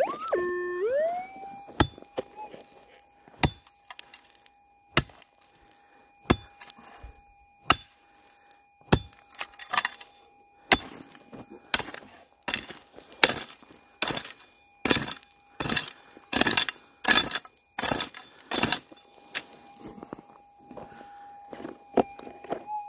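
Prospecting pick striking and scraping into stony ground, sharp hits a second or so apart at first and coming faster in the second half, over a metal detector's steady high threshold tone that settles in about a second in as the detector lies beside the hole after sounding over a gold target.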